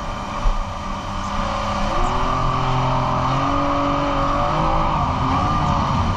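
Yamaha SuperJet stand-up jet ski's three-cylinder four-stroke engine running under way, with rushing wind and water spray over it. About two seconds in, the engine note comes up stronger and shifts in pitch as the ski accelerates through a turn.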